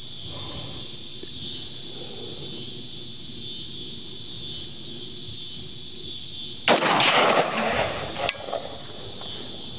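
A single shot from a 5.56 AR-15 rifle about two-thirds of the way in, its echo rolling on for about a second and a half.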